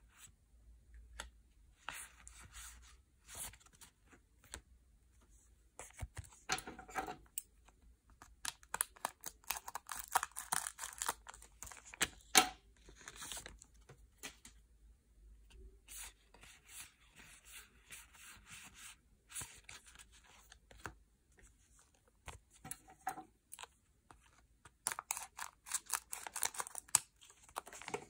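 Yu-Gi-Oh! booster packs being torn open and their foil wrappers crinkled and rubbed, in a run of short tearing and rustling bursts with sharp clicks between pauses. The loudest snap comes about twelve seconds in.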